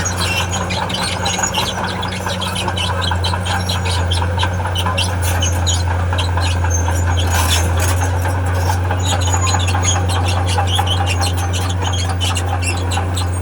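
Diesel engine of a tracked earthmover running steadily under the squeal and rapid clicking of its steel crawler tracks.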